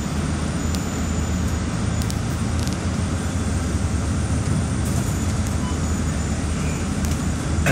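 City bus in motion, heard from inside the cabin: a steady low engine drone with road and tyre noise.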